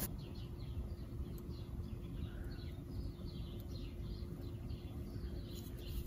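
Small birds chirping rapidly and repeatedly in the background, short falling chirps over a steady low hum and rumble of ambient noise.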